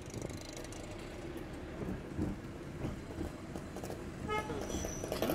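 Steady traffic and road noise heard from inside a moving car, with a brief horn toot about four seconds in.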